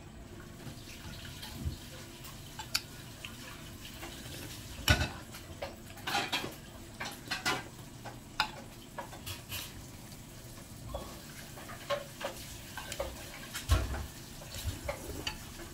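Metal spoon clinking and scraping against a ceramic soup bowl while eating noodle soup, with short slurps of hot soup and noodles from the spoon. Scattered sharp clicks, the loudest about five seconds in and again near the end.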